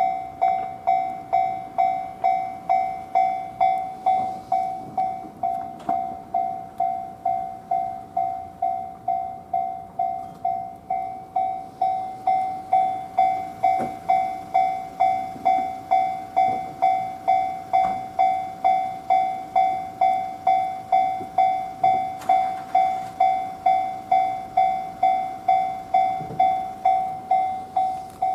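Japanese railway level-crossing alarm ringing without pause, its electronic bell striking a little over twice a second in an even, unchanging rhythm. It keeps sounding while heavy snow has stopped all trains, which the uploader suspects is a crossing fault.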